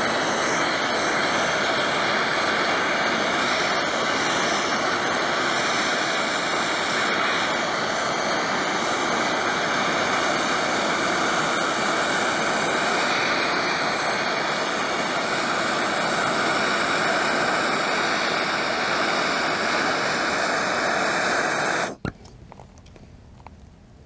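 MAPP gas torch burning steadily with a faint high whistle as it heats a heavy battery-cable lug for soldering; the flame cuts off suddenly near the end.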